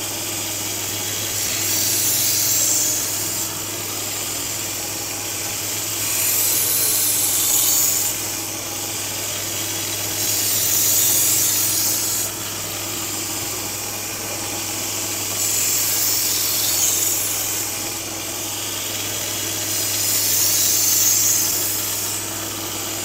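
2x42 belt grinder running with a steady motor hum while a knife edge is drawn across its fine A30 Trizact abrasive belt in repeated passes, a hissing grind swelling every few seconds as each pass is made.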